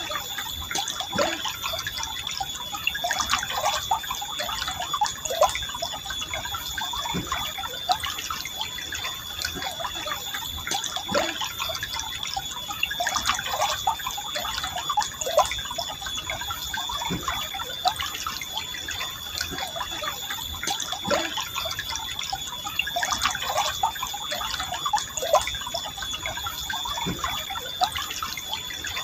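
A forest stream flowing gently: a steady rush of water with many small gurgles and drips over it. A steady, thin high tone runs beneath.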